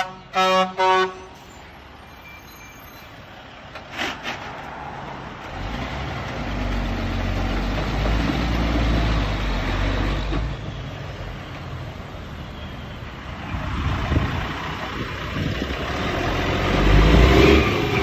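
Truck air horn giving two short toots right at the start. Diesel dump trucks then drive past with a low engine rumble: one passing a few seconds in, and another, loudest near the end, coming close.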